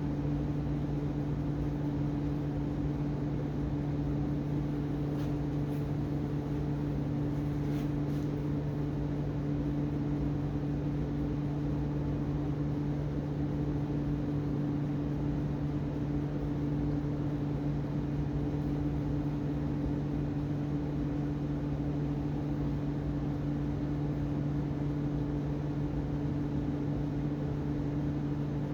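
Steady electrical or machine hum with an even low tone, and a couple of faint clicks about five and eight seconds in.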